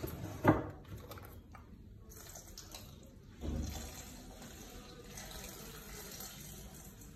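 Milk pouring in a steady stream from a carton into the stainless-steel mixing bowl of a Thermomix. A sharp knock comes about half a second in, and a dull thump about three and a half seconds in.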